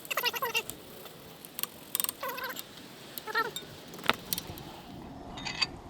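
Small metal parts clinking and jangling as the spacer hardware is handled, with a cat meowing briefly a few times.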